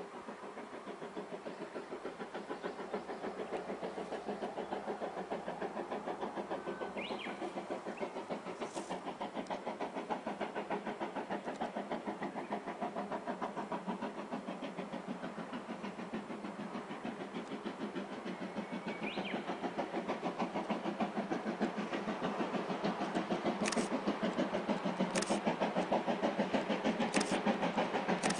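JNR Class C11 steam tank locomotive working under steam as it approaches, its exhaust chuffing in a rapid, even beat that grows louder towards the end.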